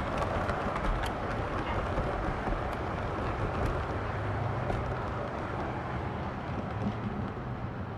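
7mm-scale model train running past on the track: a steady rolling rumble with scattered sharp clicks.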